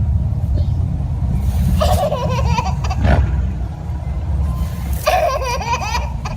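A dog giving two drawn-out, wavering howl-like vocalisations, one about a second and a half in and one about five seconds in, over the steady low rumble of a car in motion.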